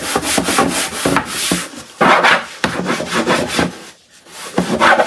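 Hand scrubbing the bottom of a laminated kitchen drawer during a first wash, in quick back-and-forth strokes with a gritty scratching rub, pausing briefly about four seconds in.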